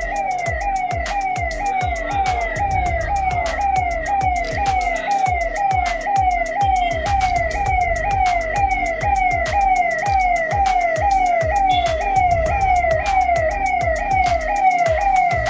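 Electronic emergency-vehicle siren sounding in quick, repeated falling sweeps, a little over two a second, held steady throughout.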